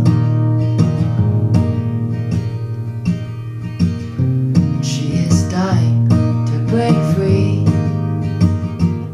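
Acoustic guitar in an open C tuning with a low F, playing an instrumental passage: chords picked at a steady pace over a low bass note that rings on.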